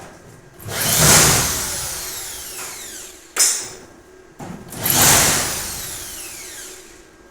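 Electric drill machine run twice in short bursts, each time spinning up sharply and then winding down with a falling whine after the trigger is released.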